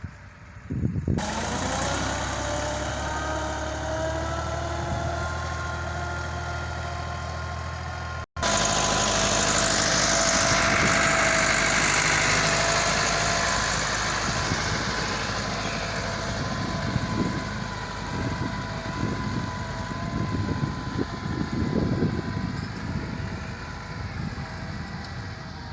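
Diesel engine of heavy earthmoving machinery running steadily, the sound changing abruptly about a second in and again about eight seconds in, with irregular knocks and clatter in the second half.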